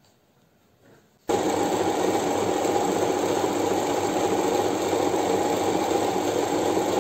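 Janome 393 MC sewing machine running steadily at speed, sewing a straight stretch stitch through stretch fabric. It starts abruptly about a second in.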